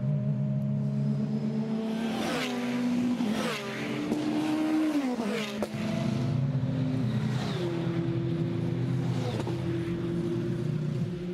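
Porsche 911 GT3 race car's flat-six engine running, its note dropping in pitch several times between about two and six seconds in, with a few sharp cracks, then settling to a steady note.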